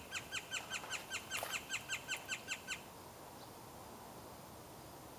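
A bird calling a rapid, even series of short chip-like notes, about six a second, for nearly three seconds, then stopping.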